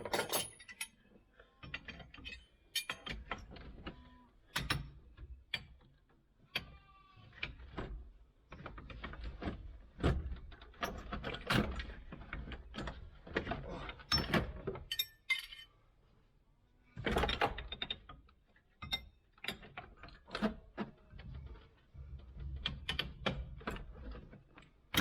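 Irregular clicks, clinks and knocks of hand tools and metal parts being worked loose while a tractor cab's interior is stripped, with a short squeak about seven seconds in.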